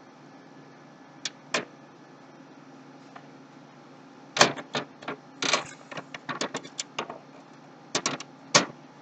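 A screwdriver driving a motherboard screw into a standoff in a PC case: sharp clicks and taps of the tool and screw, two a little over a second in, then a quick irregular run from about halfway on.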